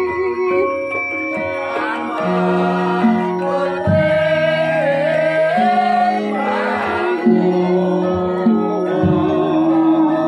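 Javanese gamelan playing, with the metallophones ringing in held tones, accompanying a sinden singing a wavering vocal line.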